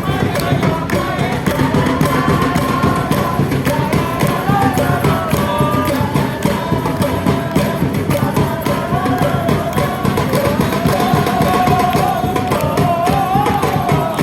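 Futsal supporters singing a chant together, with drums and percussion beating steadily underneath.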